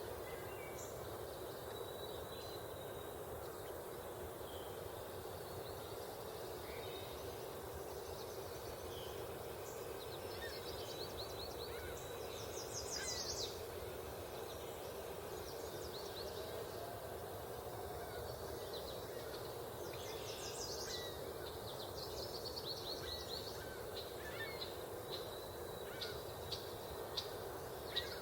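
Several small birds singing and calling, some in rapid high trills, bunched about ten to thirteen seconds in and again through the second half. Under them runs a steady low background hum.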